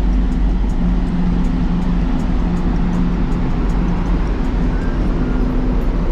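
The Sunflower Satsuma ferry under way: a steady, loud drone of the ship's engines with a low hum under an even rushing noise.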